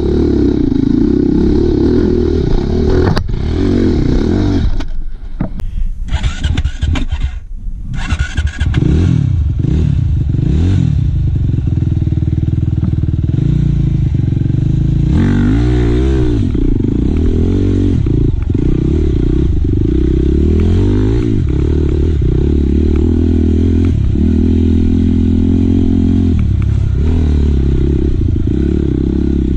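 Dirt bike's single-cylinder four-stroke engine running at varying revs, rising and falling with the throttle on a slow, rough single-track. About five seconds in it drops off briefly, with some clatter, before pulling again.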